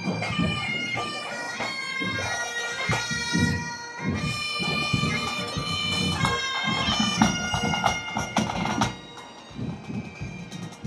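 Pipe band marching past: Highland bagpipes playing a tune over their steady drone, with drums beating beneath. Near the end the pipes fall away, leaving the drums.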